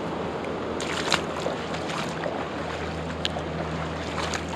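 Steady rush of a high-running river's flowing water, with a few sharp clicks, one about a second in and another about three seconds in.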